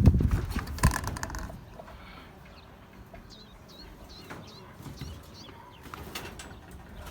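Small birds chirping repeatedly, with a loud low rumble dying away at the start and sharp knocks about a second in and again near the end.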